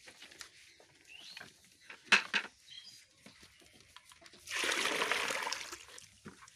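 Water poured from one plastic bucket into another, a rushing splash lasting about a second and a half near the end. About two seconds in comes a single sharp knock, the loudest sound, as a bucket is set down.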